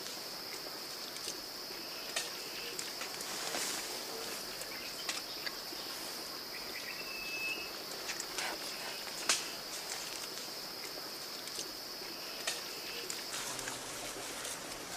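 Steady, high-pitched insect drone that stops about thirteen seconds in, with scattered sharp snaps or clicks and one short whistled note about seven seconds in.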